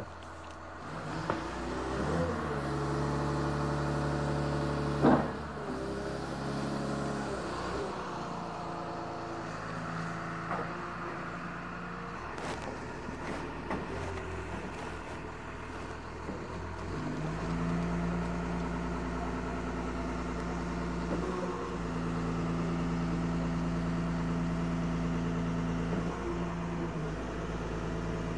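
A 16-ton internal-combustion forklift's engine runs, picking up speed about two seconds in and again a little past the middle. A single sharp knock comes about five seconds in.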